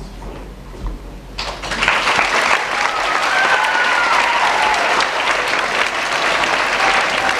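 Audience applauding, starting about a second and a half in and carrying on steadily, with a voice briefly heard over the clapping.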